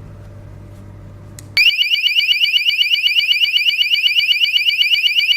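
A standalone magnetic door alarm's 110 dB siren starts suddenly about a second and a half in, a loud, high-pitched electronic tone that sweeps up rapidly many times a second. In home mode it sounds at once when the door sensor is opened.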